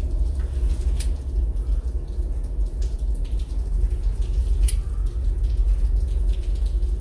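Rain falling and dripping, with separate drops striking close by every second or two, over a steady low rumble.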